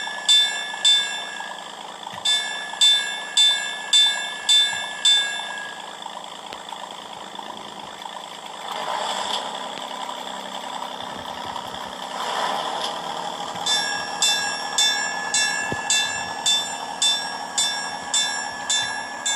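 Sound decoder of an Accucraft Galloping Goose No. 6 model ringing its bell at about two strokes a second, in runs, with a steady running noise from the model between them.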